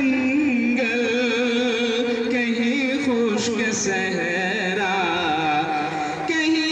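A man singing a tarana (an Urdu patriotic song) in long, melismatic held notes that waver and slide down in pitch, climbing back up near the end.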